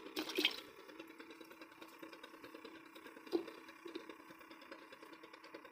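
Small blue battery air pump aerating a bucket of live prawn bait, humming faintly and steadily, with a few soft knocks.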